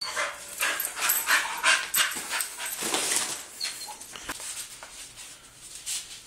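A dog panting hard in quick breaths, with a couple of short high whines; loudest in the first three seconds, then fading.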